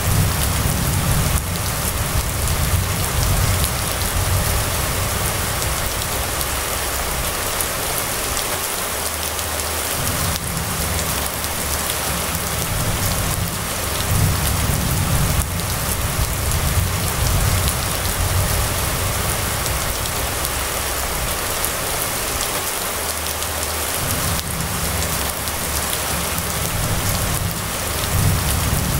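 Steady rain falling on a street and wet road, an even hiss, with a low rumble underneath that swells and fades every few seconds.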